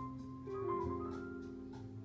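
Easy-listening instrumental music playing from a vinyl LP on a turntable: a soft passage of held melody notes over a bass line, with one short sliding note about halfway through.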